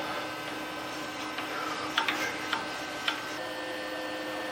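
A few light clicks and ticks from hand adjustment of the milling machine, four in about a second near the middle, over a steady faint hum.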